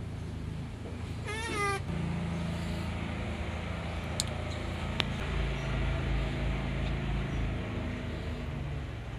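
Baby monkey, cold after its bath, gives one short, high, wavering cry about a second and a half in. A steady low hum runs under it, with a couple of faint clicks later on.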